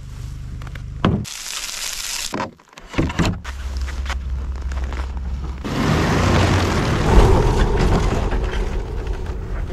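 Knocks and scrapes of a wooden ramp being handled at a pickup's tailgate, in short cut-together bits. From about six seconds in, a Ski-Doo snowmobile engine runs loudly as the sled drives up the ramp, loudest a little past the seventh second.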